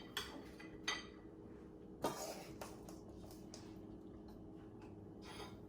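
Roasted Brussels sprouts being served onto a plate: a few soft clinks and scrapes of a utensil against the dish, the loudest about two seconds in, over a faint steady hum.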